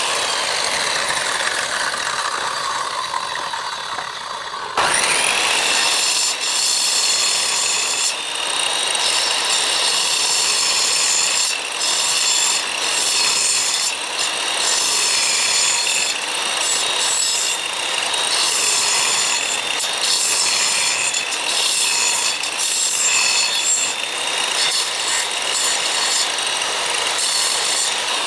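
A power tool working wood, its motor whining over a rough scraping noise. The whine drops in pitch over the first few seconds, starts up again sharply about five seconds in, and then runs steadily with brief dips as the tool bites into the wood.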